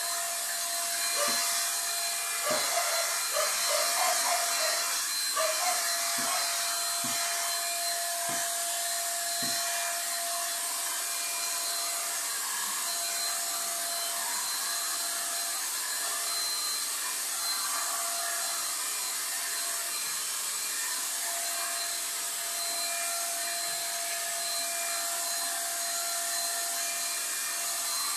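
A corded handheld power tool's electric motor running steadily while it is worked along the cabinet's edge, with a few short knocks in the first ten seconds.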